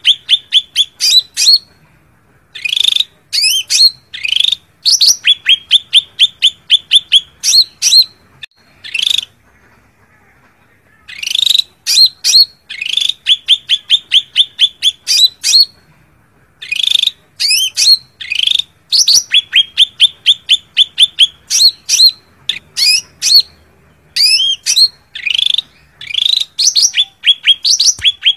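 Cucak ranting, a leafbird, giving its loud fighting call to a rival: quick runs of sharp repeated notes, about five a second, broken by short pauses.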